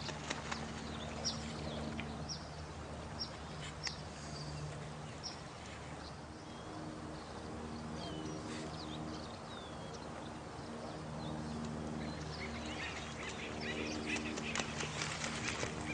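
Nature ambience of running water, with frequent short, high, falling bird chirps over it and low drawn-out calls underneath; a run of quick clicks and splashes comes near the end.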